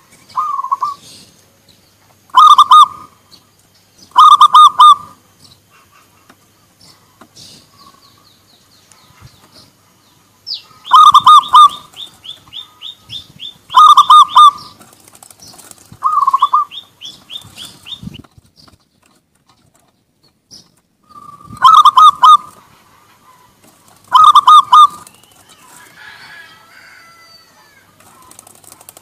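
Zebra doves (perkutut) cooing: about eight loud, short bursts of rapid, rolling staccato coos, several seconds apart. A faster, higher run of short notes follows some of them.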